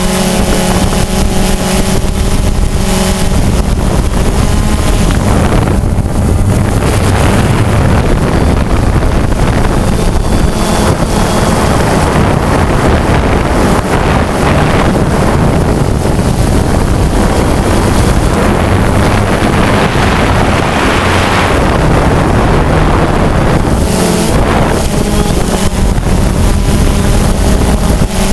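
DJI Phantom 2 quadcopter's electric motors and propellers buzzing steadily in flight, picked up by the camera mounted on the drone, with wind rushing over the microphone.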